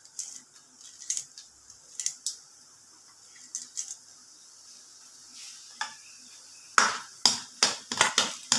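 Spoon stirring and scraping in a pan of chana dal and urad dal roasting in hot oil. A few scattered clicks come first, then near the end a quick run of louder scrapes, two or three a second.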